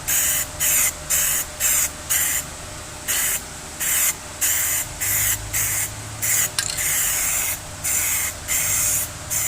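Aerosol can of Plasti Dip rubberized coating spraying in quick short bursts, about two or three a second, with one longer pass near the end: light coats being dusted on.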